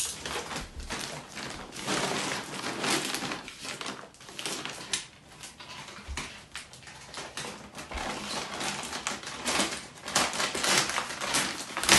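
Heavy brown kraft-paper wrapping being slit with a box cutter and pulled, rustling and crinkling in an uneven run of short strokes.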